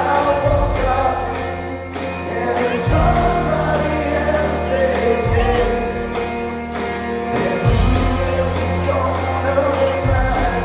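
Live rock band playing a song with singing over it: sustained bass notes changing every couple of seconds, and repeated cymbal strokes.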